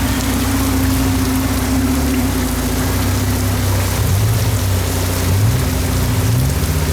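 An engine running steadily, its pitch shifting slightly a few seconds in, under a constant hiss.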